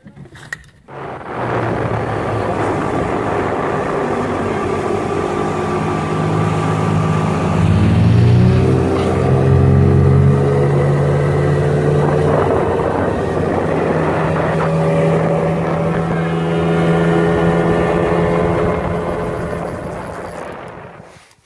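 Outboard motor driving a small boat at speed: a steady engine drone that rises in pitch about eight seconds in and then holds, over the rush of water and wind. It fades out near the end.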